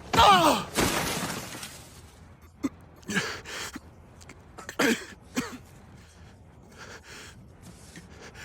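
Short pained grunts and gasps from a voice actor, with a crashing noise about a second in, as in a one-sided fistfight.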